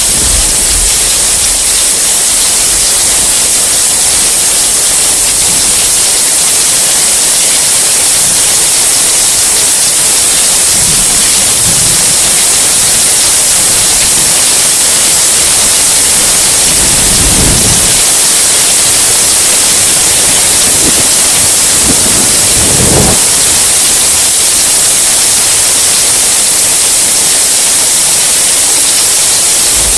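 Heavy rain falling in a steady, loud hiss, with low rolls of distant thunder rumbling a few times in the second half, the clearest about two-thirds of the way in and again near the three-quarter mark.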